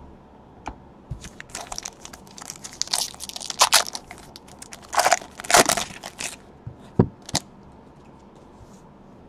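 Foil trading-card pack wrapper crinkling and tearing as it is pulled open by hand: a run of irregular crackles and rips, loudest between about three and six seconds in, ending with a couple of sharp clicks.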